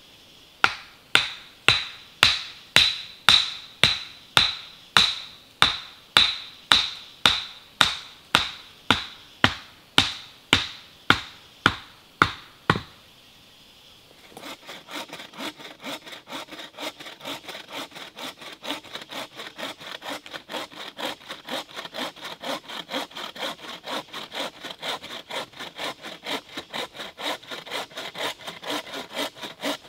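Steady chopping blows into wood, about two a second, stop about 13 seconds in. After a short pause, a wooden-framed bow saw cuts through a log with quick, even back-and-forth strokes.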